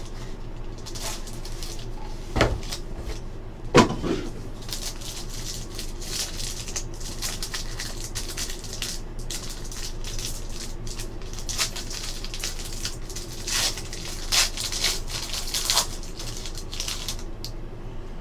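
Handling of a cardboard trading-card box, with two sharp knocks as the lid is worked open, then foil pack wrappers crinkling and tearing in many short bursts as a pack is opened.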